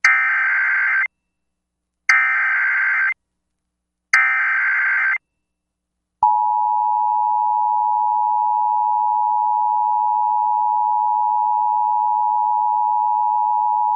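Emergency Alert System SAME header: three warbling digital data bursts, each about a second long and two seconds apart. About six seconds in, the single steady 1050 Hz NOAA Weather Radio alert tone starts and holds, signalling an alert, here a tornado watch.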